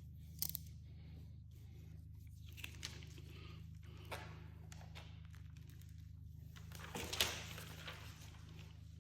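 Window tint film being handled: a click near the start, then rustling, and a louder crinkle or scrape about seven seconds in, over a steady low hum.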